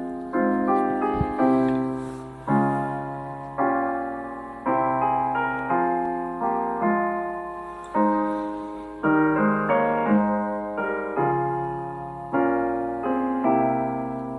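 Slow solo piano intro music: a sustained chord struck about once a second, each one fading before the next.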